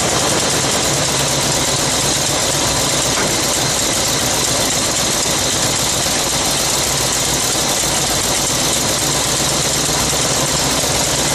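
Chevy 350 small-block V8 in a 1969 GMC pickup running steadily with a steady low note, on a freshly rebuilt Carter carburetor.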